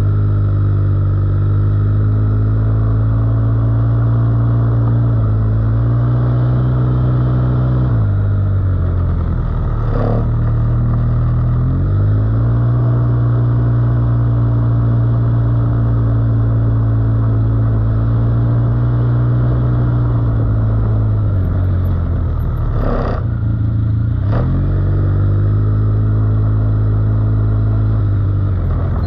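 ATV (quad bike) engine running under way, its pitch rising and falling as the throttle opens and closes. A few short knocks sound over it, one about ten seconds in and two close together near the end.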